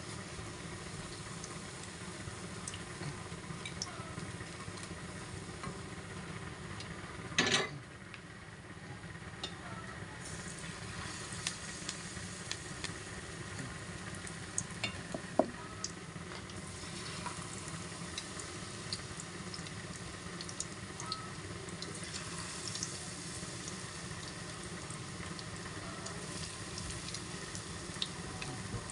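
Batter-coated kangkong (water spinach) leaves deep-frying in hot oil in a wok: a steady sizzle with scattered small crackles. A louder burst of under a second comes about seven seconds in, and a single sharp click about halfway through.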